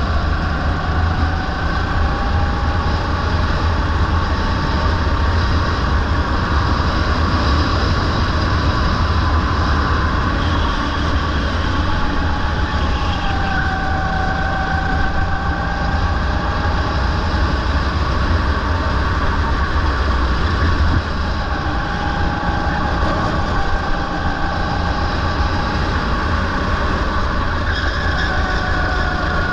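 Rental go-kart engine running at racing speed, its pitch gliding up and down through the corners, over a heavy steady low rumble.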